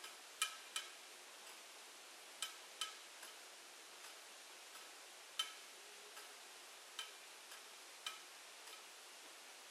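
Mechanical level-crossing warning bell (Läutwerk) being struck at irregular intervals, some strokes in close pairs, each a short ringing clang. Fainter strikes fall between them, over a steady hiss.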